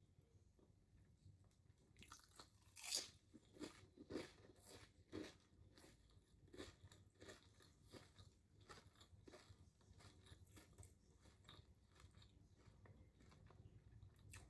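Faint, close-miked chewing and biting of a sandwich: a run of soft crunches and wet mouth clicks, the loudest around three to five seconds in.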